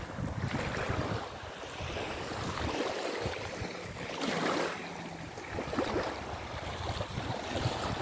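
Small waves washing onto a sandy shore, with some wind on the microphone; one wash swells up about halfway through.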